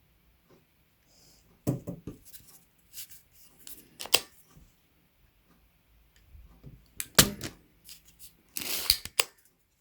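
Sharp clicks and knocks of tools against a mechanical keyboard's circuit board while a key switch is being desoldered, with a short rasping noise near the end.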